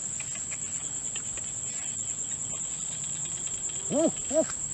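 Steady high-pitched insect chorus of crickets. Near the end come two short calls from an animal, each rising and then falling in pitch.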